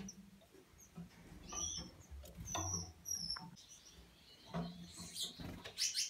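Small cage finches giving short, high chirps, scattered through and bunching up near the end, over a faint low rumble.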